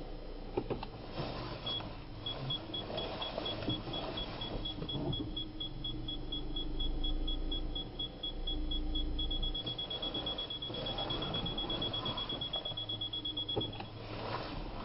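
Car parking-sensor warning: a high beep repeating about six times a second that merges into one continuous tone and cuts off near the end. Under it, the Škoda Yeti's engine runs with a low steady hum.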